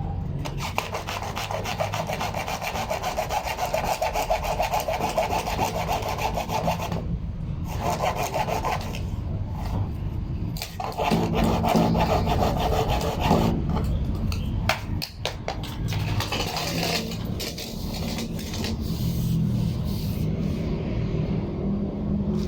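A hand saw cutting with quick, even rasping strokes, breaking off briefly about seven seconds in and again near ten seconds before carrying on, over a steady low hum.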